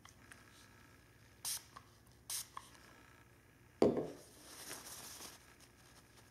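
Two short hissing sprays from a pump spray bottle, about a second apart, then a sudden thump and the soft rustle of a paper napkin being handled.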